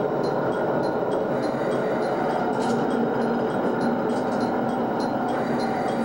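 Diesel railcar running at low speed, heard from the driver's cab as a steady engine and running noise, with a light click repeating about two or three times a second.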